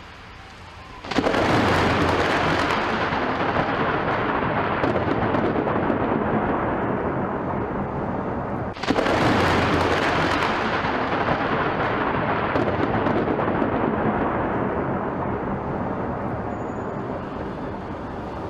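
Thunder from two lightning strikes: a sudden loud crack about a second in and another about nine seconds in, each fading slowly into a long rumble.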